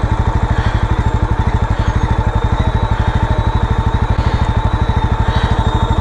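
Motorcycle engine running steadily at low revs, with an even, rapid pulse of firing strokes.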